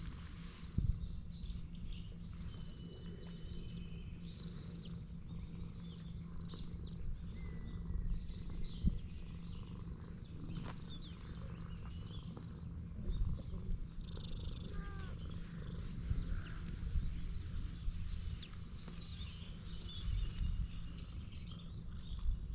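Cat purring steadily while being stroked, a low continuous rumble.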